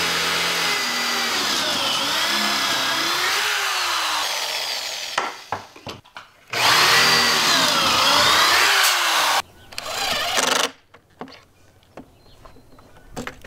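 Corded drill boring pocket holes through a board clamped in a pocket-hole jig. It makes two long runs of about five and three seconds, the motor's whine dipping in pitch and recovering as the stepped bit bites into the wood. A short third run follows about ten seconds in.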